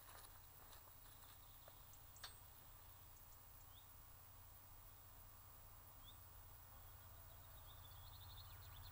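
Near silence: faint rural ambience with a steady low rumble and a few faint bird chirps, with a quick run of chirps near the end.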